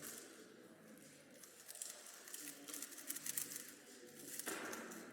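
Faint, irregular clicking of a Rubik's cube's plastic layers being turned by hand, with a brief rustle near the end.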